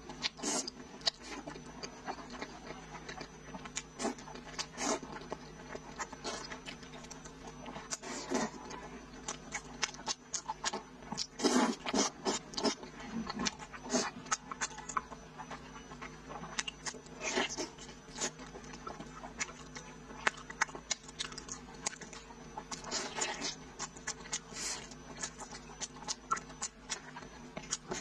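Close-up mouth sounds of eating: slurping wide noodles, then chewing and biting braised pork trotter, with many short, irregular smacks throughout and a louder run of them about halfway through.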